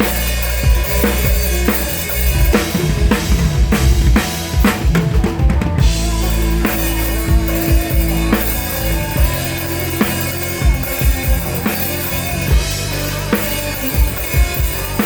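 Rock drum kit played live with the band: kick drum and snare on a steady beat, with a fast fill of rapid hits about three to six seconds in, over bass and held guitar notes.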